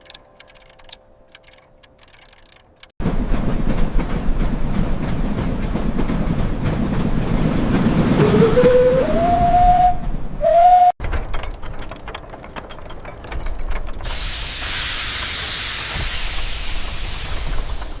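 Steampunk steam-machinery sound effects: faint chimes and ticks, then a sudden loud rumble of steam with a whistle rising in pitch that cuts off abruptly. Clattering machinery follows, then a loud steady hiss of venting steam near the end.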